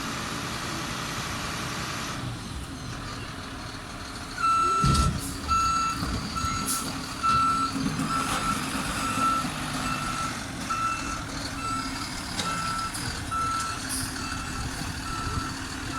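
Garbage truck's diesel engine running while its backup alarm starts beeping about four seconds in, a steady high beep repeating roughly three times every two seconds as the truck reverses.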